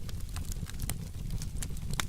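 Wood fire burning: a steady low rumble of flames with scattered sharp crackles and pops, several a second.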